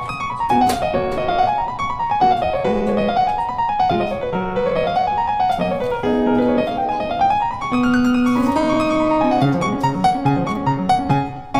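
Background piano music: quick runs of notes rising and falling over a lower line of notes.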